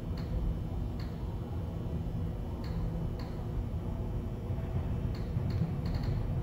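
Low, steady rumble in a subway station, with sharp ticks at irregular spacing over it.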